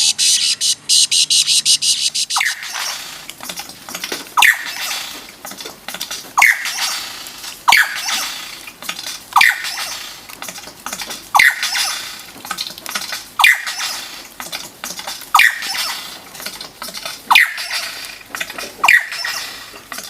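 A bird's rapid clicking rattle, then the same or another bird repeating a loud, squealing call that slides down in pitch, about ten times, one every one to two seconds.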